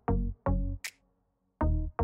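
Electronic background music: deep bass-drum hits carrying pitched bass notes, with a sharp hi-hat-like hit, pausing for about half a second midway before the beat comes back.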